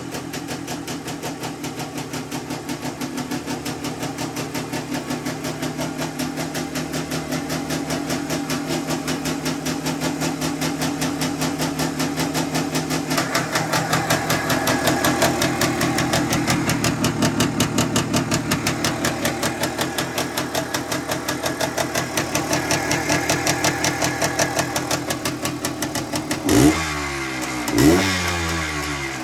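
1974 Yamaha DT360A's 360 cc single-cylinder two-stroke engine idling with an even, rapid beat. Near the end the throttle is blipped twice, two quick revs that rise and drop back to idle.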